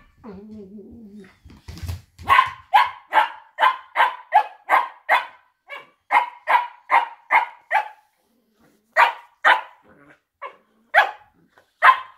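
Cocker spaniels play fighting: a short low growl, then from about two seconds in a rapid string of sharp barks, about three a second. The barks pause for about a second near the eight-second mark, then come back scattered.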